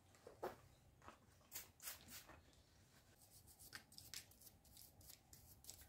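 Faint, scattered rubbing and scraping as a cloth rag and a wooden stick clean dirt off a small metal pinion gear.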